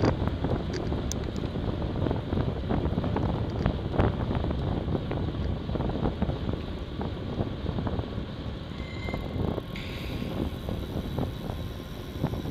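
Wind buffeting the microphone of a bicycle-mounted camera while riding, over a steady rumble of tyres on the road, with frequent small clicks and rattles from the bike.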